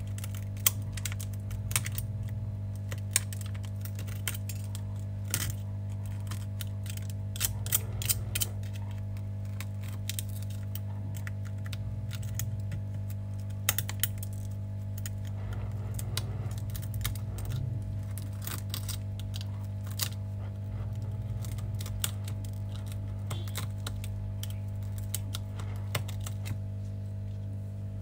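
Shattered iPhone 12 mini back glass being scraped and chipped off with a scalpel blade: irregular sharp clicks and cracks of breaking glass fragments, over the steady low hum of a hot-air gun.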